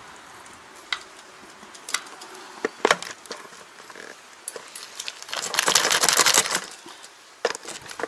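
Tractor PTO drive shaft being handled on concrete: a few sharp knocks, then a loud scraping rattle lasting about a second and a half, starting around two-thirds of the way in.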